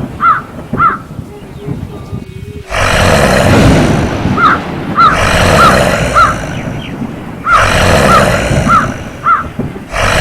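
Horror sound-effect track: a crow cawing in runs of about four caws, over a loud, harsh rushing noise that cuts in suddenly about two and a half seconds in, restarts about seven and a half seconds in and again near the end.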